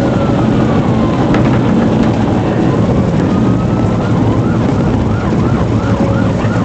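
Police car siren on a slow rise-and-fall wail, switching to a fast yelp of about two to three sweeps a second about four seconds in, over loud engine and road noise of the moving cruiser.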